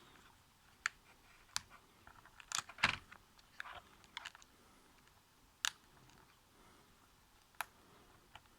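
Scattered small plastic clicks and taps as a plastic prying tool works the keyboard's ribbon-cable connectors loose inside a Lenovo ThinkPad T440p laptop. The loudest part is a quick cluster of clicks about two and a half seconds in.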